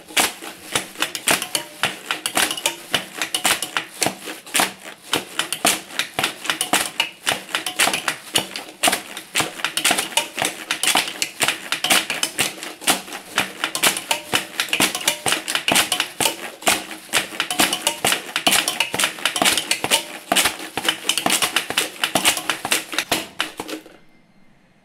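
Several plastic bags being crumpled and plastic water bottles being squeezed together: a dense, irregular crackling and clicking that dies away near the end.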